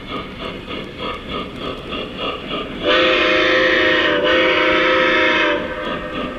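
O scale Lionel steam locomotive's onboard sound system running a steady rhythmic chuff. About three seconds in, the steam whistle blows two blasts back to back, the loudest sound, with a short gap between them; after that the chuffing carries on alone.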